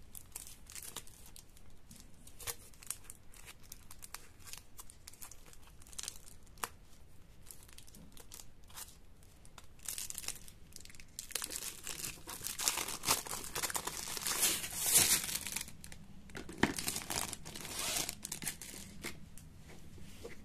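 Clear plastic wrap around a paper-masked acrylic sheet crinkling as hands handle and unwrap it, with scattered clicks and crackles. About halfway through the crinkling grows louder and denser, then thins out again near the end.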